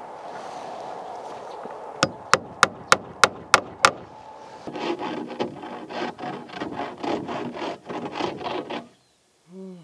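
Hammer driving a nail into a wooden board, seven quick blows about three a second, followed by a handsaw cutting through wood in rhythmic rasping strokes.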